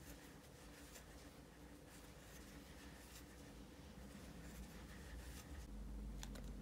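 Faint rustling and light ticks of a metal crochet hook drawing yarn through stitches, over a low steady hum.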